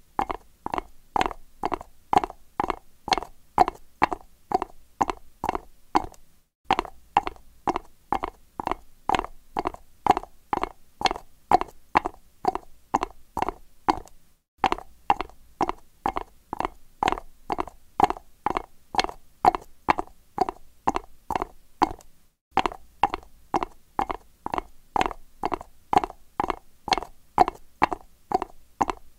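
Horse hooves trotting on concrete, a steady clip-clop of about three hoofbeats a second, cutting out briefly about every eight seconds.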